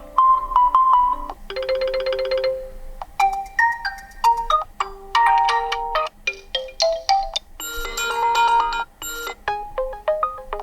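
Realme C30 smartphone ringtones previewed one after another: about seven short electronic melodies, each cut off after a second or two as the next begins. One of them, about two seconds in, is a fast run of rapidly repeated notes.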